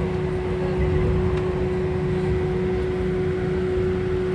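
Airliner cabin noise on the ground before takeoff: a steady drone of engines and cabin air with a constant whine running through it.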